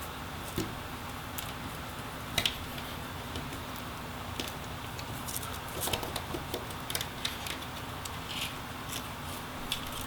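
Light, irregular clicks and rustles of a thin laptop video cable being worked out of the plastic routing channels in the display housing, over a steady low hum.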